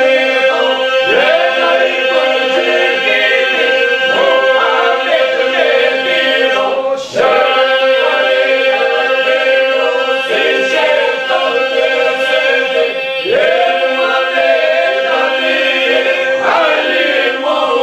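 Group of men and a woman singing an Albanian devotional song together, the melody weaving over a steady held drone note. There is a brief break about seven seconds in.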